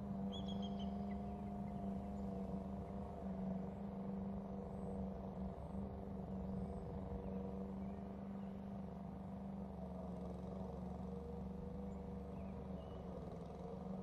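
Steady low motor-like hum with a few held tones. A short, high, falling bird call sounds about half a second in, and a fainter one comes near the end.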